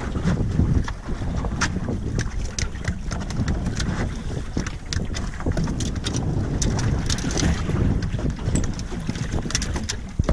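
Wind buffeting the microphone with a heavy low rumble, over the wash of the sea, with many scattered sharp taps and knocks on the boat's deck.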